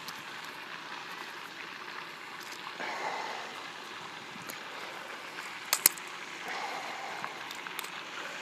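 Handling noise from a phone rubbing against a shirt sleeve and bare arm: a steady rustling hiss with a few sharp clicks, the loudest a quick double click about six seconds in.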